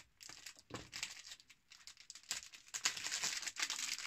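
Plastic bag and tissue-paper wrapping crinkling and rustling as it is cut and pulled open by hand, in irregular bursts that grow denser about halfway through.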